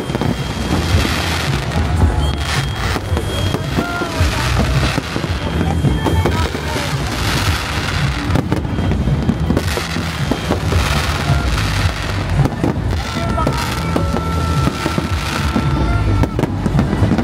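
Fireworks bursting and crackling in rapid succession, with music playing underneath.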